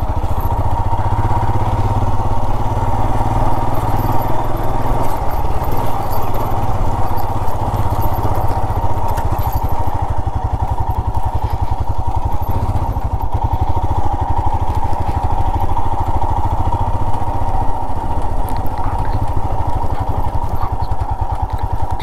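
Motorcycle engine running steadily under way, a continuous low rumble of even firing pulses.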